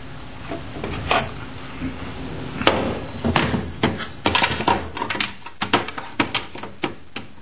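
Parts of a saw table being handled and repositioned: a few separate knocks, then from about two and a half seconds in a quick run of knocks and clatter.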